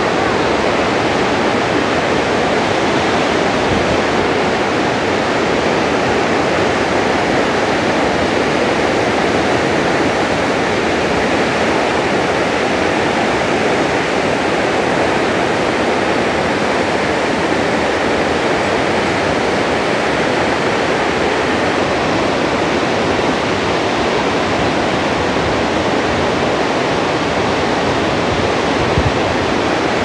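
Barachukki Falls on the Kaveri (Cauvery) river in heavy flow: a steady, loud rush of water pouring over the rocky falls.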